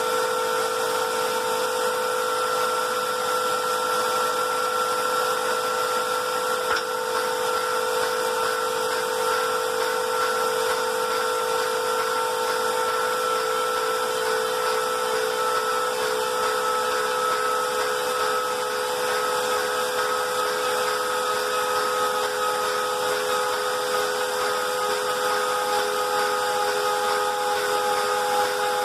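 Moore jig grinder's high-speed spindle whining steadily as its CBN wheel rough-grinds a pocket, with a hiss of grinding under the whine. The pitch of the whine sags slightly in the second half.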